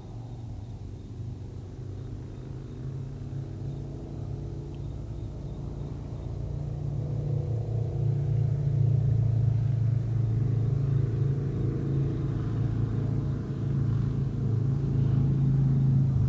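A low, steady droning rumble that grows louder over the first half and then holds.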